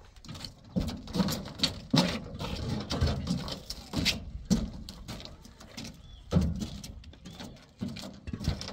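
Hollow concrete blocks being handled and set down on a stack: a series of knocks and scrapes of concrete on concrete, about one every second.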